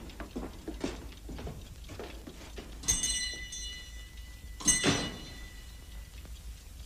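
A small metal bell is struck sharply twice, about three seconds in and again nearly two seconds later. Each strike rings on with several clear high tones. A few soft knocks come before it.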